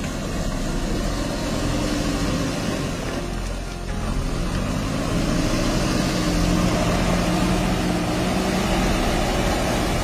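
JCB backhoe loader's diesel engine running under load close by, its pitch rising about five seconds in and holding high as the machine works.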